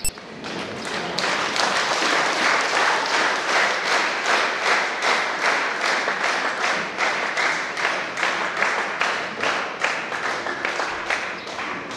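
Audience applauding, a dense clatter of many hands clapping that tapers off near the end, after a brief sharp click at the very start.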